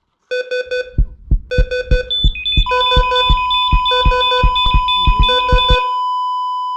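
Rapid electronic beeps, each with a low thump, with a long steady beep joining about two and a half seconds in. The steady beep holds on alone after the rest stops, about six seconds in.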